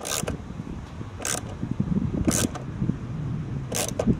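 Socket ratchet with an extension bar clicking in four short bursts, about a second apart, as it is swung back and forth to turn a bolt on a motorcycle mirror mount. A low rumble runs underneath.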